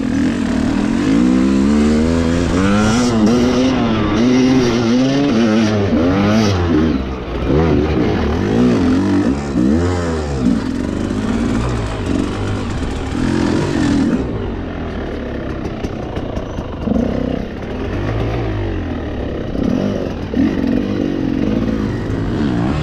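Enduro motorcycle engine being ridden hard off-road, the revs rising and falling again and again with the throttle. It is a little quieter and less busy in the last third.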